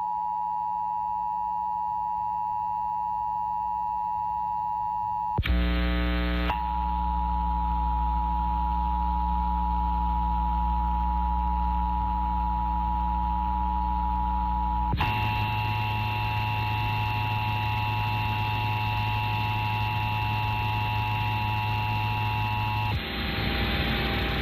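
Emergency Alert System attention signal: a loud, steady electronic alert tone held for about twenty seconds. Its sound changes briefly about five seconds in and again about fifteen seconds in, and it cuts off near the end.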